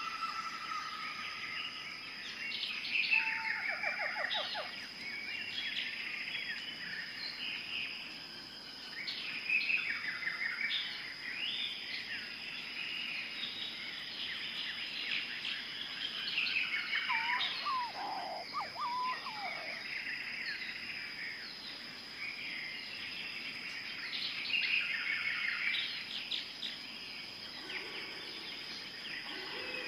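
Jungle ambience: several birds calling over one another with quick repeated chirps and trills, and now and then a lower sweeping call, over a steady high insect whine.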